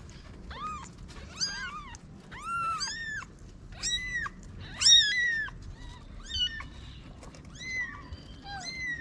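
Newborn kittens mewing: about a dozen short, high-pitched cries, each rising and falling in pitch, loudest about five seconds in.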